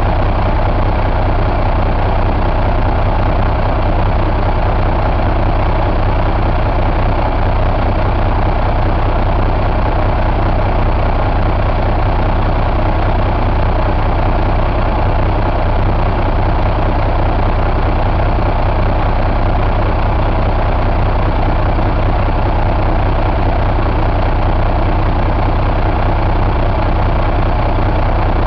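2005 Cummins ISX inline-six diesel engine running steadily at idle, loud and even with no change in speed.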